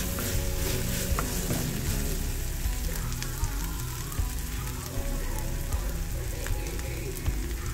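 Chopped onions and green chillies sizzling steadily in oil in a clay pot, stirred with a wooden spatula at the start, with a few light scrapes and clicks in the first second or two.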